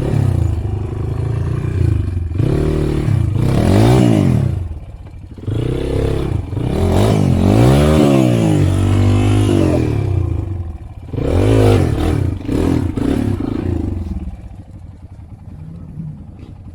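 Motorcycle engine revving up and easing off again and again, in several surges, then settling lower near the end.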